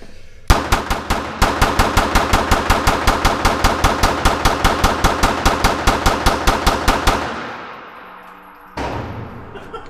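Glock 19 9mm pistol fired as fast as the trigger can be pulled, emptying a 34-round load in a rapid, even string of about six shots a second, echoing in an indoor range. The firing stops about seven seconds in and the echo fades, then a single thump comes near the end.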